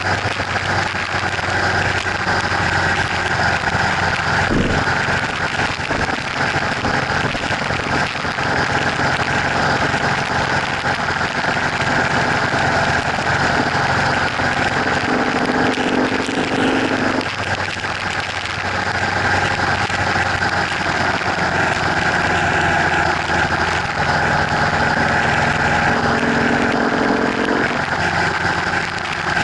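Motorcycle engine running steadily at freeway speed under heavy wind and road noise. The engine note changes twice, for a couple of seconds about halfway through and again for a few seconds near the end.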